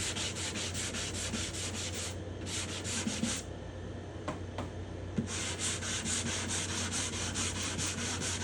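Sandpaper on a felt block being rubbed back and forth over a spruce guitar top, about four quick strokes a second. The strokes pause for a couple of seconds midway and then resume. This is the final sanding before French polishing, taking the shellac back down close to bare wood.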